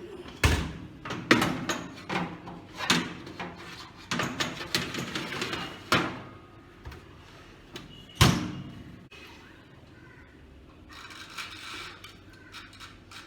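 Metal baking tray and door of an OTG countertop oven being handled: a series of knocks and clatters, with the loudest bang about eight seconds in.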